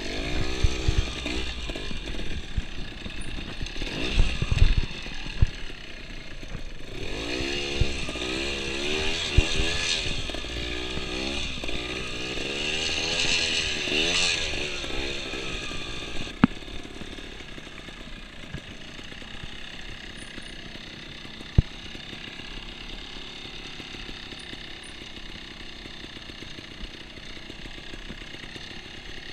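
Trials motorcycle engine being blipped, its revs rising and falling again and again as the bike works through the section, then running lower and steadier through the second half. A couple of sharp knocks cut through, the first about halfway in.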